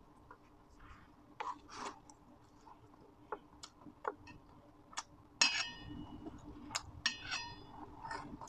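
Metal fork clicking and scraping against a stainless steel plate while picking up salad, with several short ringing pings in the second half. Soft crunches of chewed lettuce about a second and a half in.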